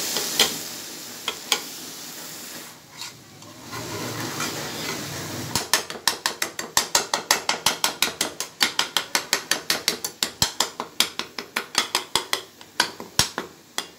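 Minced meat sizzling in a pan, then from about five and a half seconds in a metal spatula chopping rapidly down against the pan, about five sharp clacks a second: the chopping that gives taka tak its name.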